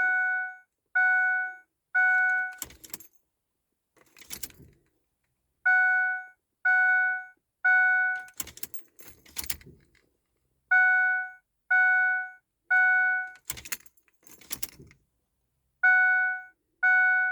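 A 2006 Ford F-150's dashboard warning chime dinging in sets of three, each set followed by clicks and a jangle of the keys as the ignition key is turned on and off over and over, a key-cycling routine to reset the powertrain control module. The pattern repeats about every five seconds.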